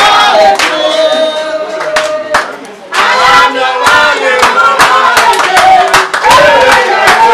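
A group of people singing together and clapping along, with a brief lull about two and a half seconds in.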